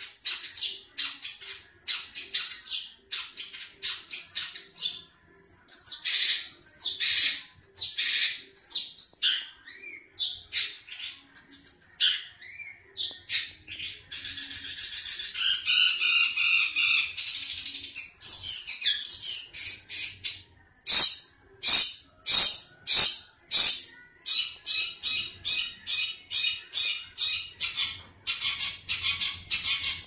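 Caged long-tailed shrike (cendet) in breeding condition, calling in rapid runs of short harsh chattering notes, about three or four a second. Midway it breaks into a warbled passage with gliding notes, and a few seconds later gives a handful of louder separate harsh calls about half a second apart before the fast chatter resumes.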